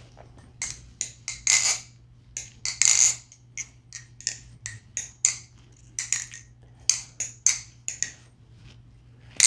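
MachineWise Mayrn Lite balisong being flipped: its handles clack against the tang and pins in a quick, irregular run of sharp metallic clicks. It makes a very nice sound, with very nice, tight tolerances and barely any play in the pivots. A steady low hum runs underneath.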